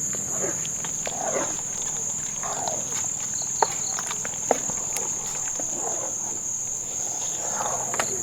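Insects droning outdoors in one steady high pitch, with a few sharp clicks: two near the middle and one near the end.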